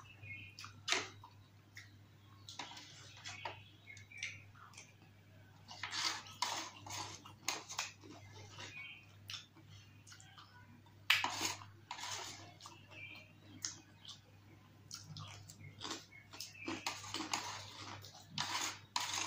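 Close-up eating sounds: a plastic spoon clicking and scraping as it breaks into a yogurt-covered samosa chaat, with wet squishing and mouth sounds of chewing. The sharpest clicks come about 11 seconds in and again near the end.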